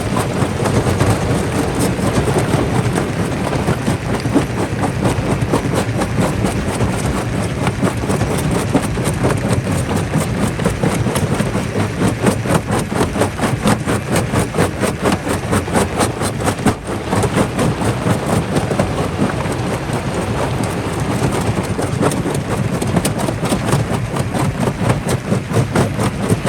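Quarry jaw crusher running and crushing rock: a steady, dense rattle of rapid knocks over a low machine drone.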